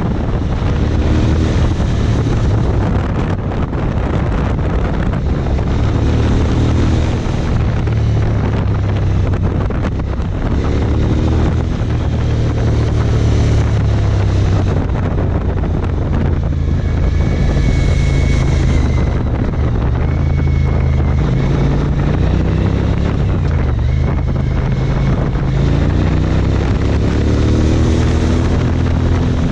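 Suzuki V-Strom 1000's V-twin engine pulling a motorcycle through bends, its pitch rising and falling several times with the throttle, under heavy wind noise on the camera microphone.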